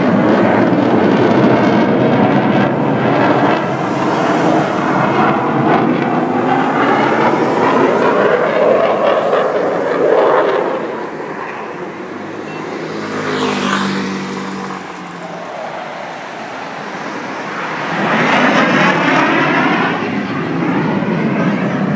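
F-16 fighter jet's engine roaring as it flies past overhead, with a wavering, phasing sound. It eases off somewhat in the middle and swells loud again near the end.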